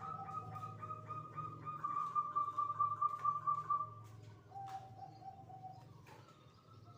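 Zebra dove (perkutut) singing its trilled coo: a long, rapidly pulsed note for about four seconds, then a shorter, lower pulsed coo. A steady low hum runs underneath.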